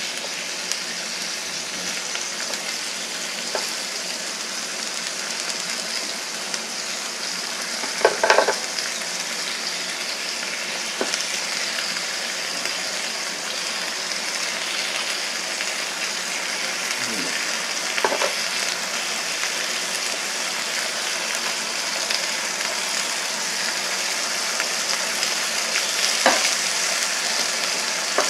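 Beef rib steak and sliced vegetables sizzling on an electric contact grill, a steady hiss, with a few short clicks of metal tongs against the grill plate as the vegetables are turned.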